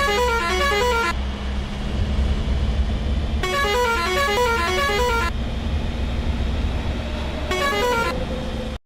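A Volvo bus's musical horn playing a rapid tune of stepping notes three times: a first run ending about a second in, a longer one in the middle and a short one near the end. The bus engine rumbles steadily underneath.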